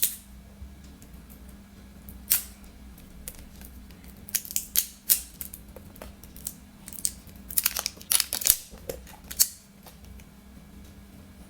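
Sharp plastic clicks and crackles of a sealed serum bottle being opened, its cap and seal worked loose, coming in irregular clusters.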